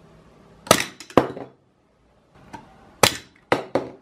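Hard plastic surprise egg being pried open: sharp plastic clicks and snaps, two about a second in and three more near the end, as the shell's halves unlatch and come apart.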